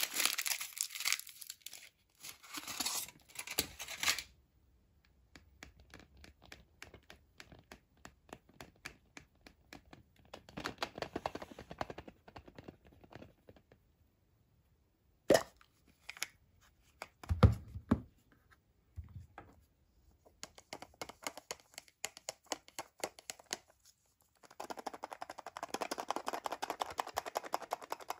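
Foil wrapper of a Kinder Surprise chocolate egg being peeled off, crinkling and tearing. After quieter ticks, a single sharp snap about halfway through as the hollow chocolate shell is broken open, a couple of duller knocks, then more crinkling and handling near the end as the plastic toy capsule is taken out.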